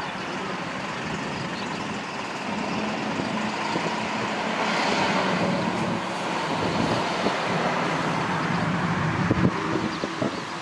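USH-60K helicopter's twin turboshaft engines and main rotor running as it taxis along the runway: a steady drone with a low hum that swells a little about four to six seconds in.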